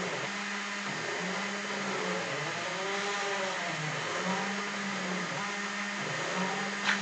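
Small CNC PCB milling machine at work: the spindle runs with a steady whir while the stepper motors hum, their pitch stepping and sweeping up and down as the axes move. A single sharp click just before the end.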